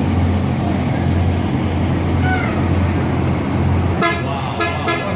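Diesel motorcoach passing slowly at low speed, its engine running with a steady low hum; about four seconds in a vehicle horn honks in short blasts.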